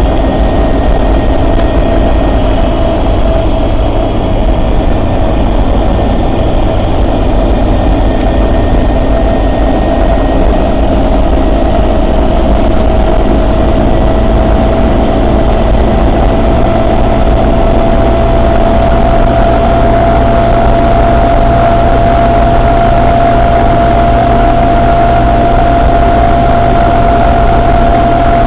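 Suzuki Samurai running, with a steady whine that creeps slightly higher in pitch over a loud low rumble: a strange noise that the owner places in the transfer case.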